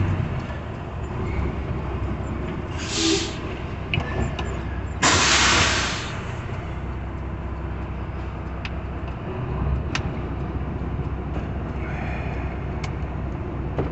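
Heavy diesel trucks idling in a truck-stop yard as a steady low rumble. A short hiss comes about three seconds in, and a louder hiss of released air, about a second long, around five seconds in, typical of a truck's air brakes.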